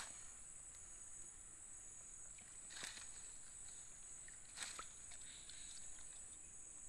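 Steady high-pitched insect chorus, with two brief sharp sounds about three and four and a half seconds in.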